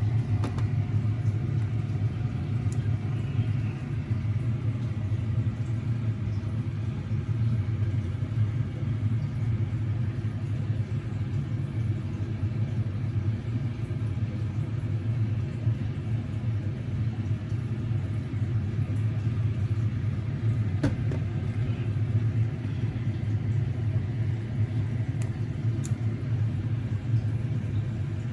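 A steady low rumbling hum, like a fan or motor running, with a few faint clicks: one near the start, one about 21 seconds in and one about 26 seconds in.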